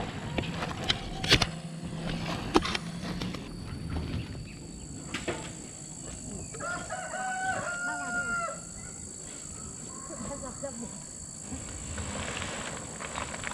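A rooster crows once, about halfway through, in a stepped call lasting about two seconds. Before it come a few sharp knocks, and a steady high-pitched whine sets in after a few seconds.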